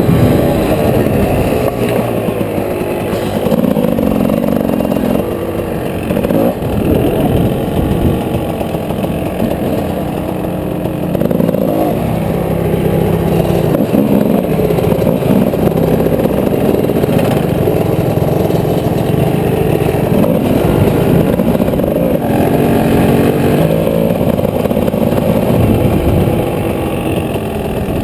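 Enduro dirt bike engine heard from on board, revving up and down again and again, its pitch rising and falling as the rider accelerates, shifts and backs off.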